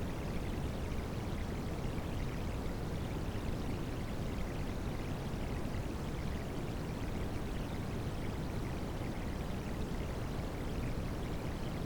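Steady rushing-water noise mixed with white noise as a tinnitus-masking track, deepest in the low range and unchanging in level.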